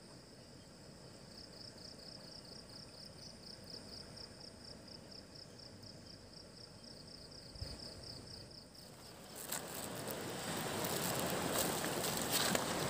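An insect chirps steadily in even, rapid pulses over a faint background hiss. About nine seconds in, louder rustling, scraping and scattered clicks take over as the phone is moved over a pebbly riverbank.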